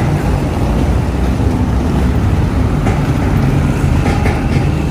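Street traffic noise: a steady low rumble, with a few light clicks late on.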